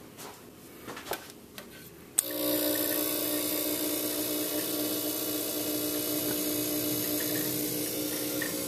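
Fog-machine smoke tester switched on about two seconds in, running with a steady buzzing hum and hiss as it pushes smoke into the truck's EVAP lines for a leak test.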